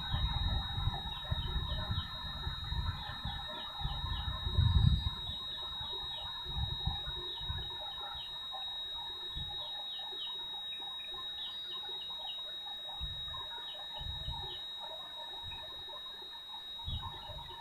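Open-air swamp ambience: many short bird chirps and calls over a steady high-pitched insect whine. Wind rumbles on the microphone in gusts, strongest in the first five seconds.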